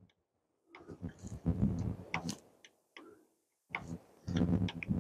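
Ratchet wrench clicking in two quick spells while a battery terminal clamp is tightened down on a truck battery.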